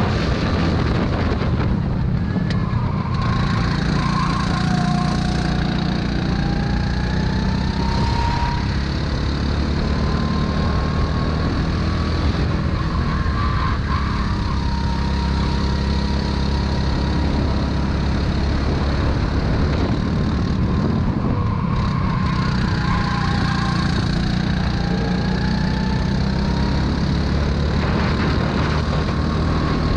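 Go-kart engine running at racing speed, heard from on board the kart, its pitch rising and falling as it accelerates and eases off through the corners.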